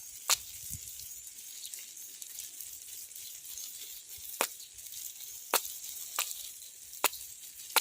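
Running water hissing steadily, bubbling as it flows, with about eight scattered sharp clicks.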